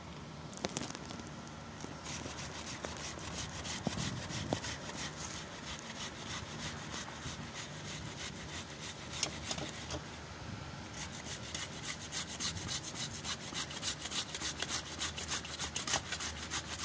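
Red onion being grated on the fine teeth of a stainless steel hand grater: quick rasping strokes, several a second, with a short pause about ten seconds in.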